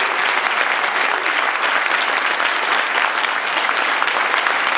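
An audience applauding, with many hands clapping continuously in a dense, steady clatter.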